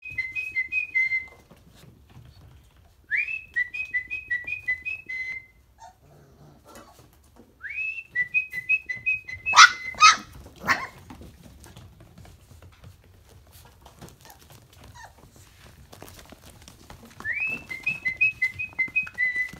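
A whistled call, repeated four times: each time a rising note, then a quick run of notes alternating between two pitches. A few short, sharp yelps come about ten seconds in, among young Briard puppies.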